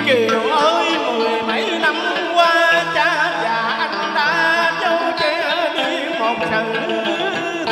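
A singer with a microphone sings a drawn-out, wavering vocal line in Vietnamese cải lương style, opening with a falling slide, over sustained instrumental accompaniment.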